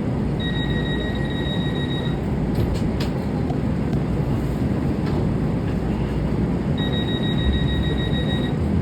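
Inside a light-rail train car: the steady rumble of the moving train, with a high electronic beep tone sounding twice, each time for under two seconds, and a few light clicks in between.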